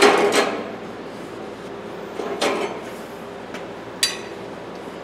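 Steel pliers clanking against a hydraulic shop press as they are handled and repositioned for straightening: a loud ringing clank at the start and another just after, then two more, about two and a half and four seconds in, over a steady low hum.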